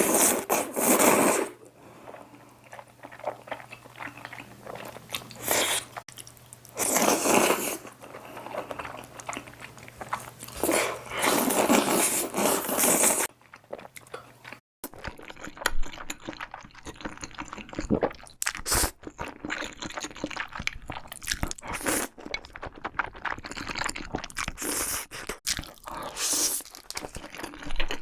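A person eating crunchy food with loud crunching bites and chewing. Loud crunches of about a second each come every few seconds in the first half, then a steady run of small crackling chews.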